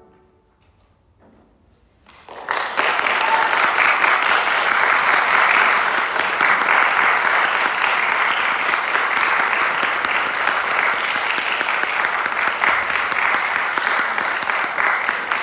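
Audience applauding, breaking out about two seconds in after a brief hush.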